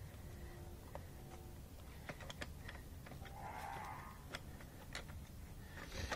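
Scattered light clicks and taps of the chrome tank dash console on a Harley-Davidson Softail being handled and set in place on the fuel tank, with a brief soft rustle about halfway and a quick cluster of clicks near the end.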